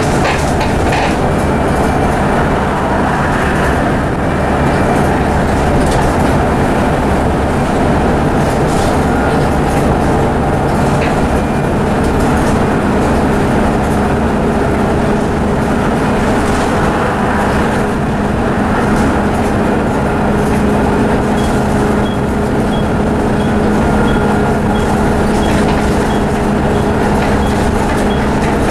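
Inside a Volvo B7TL double-decker bus under way: the rear-mounted six-cylinder diesel runs under a continuous roar of road noise and body rattle. The engine note settles to a steadier drone about halfway through, and faint regular ticks come in over the last few seconds.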